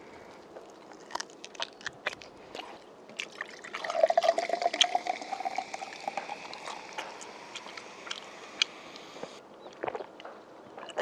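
Cola poured from a can into a glass, fizzing as it fills, with a pouring tone that rises slightly; the pour starts about four seconds in and stops about nine seconds in. A few light clicks and knocks come before and after the pour.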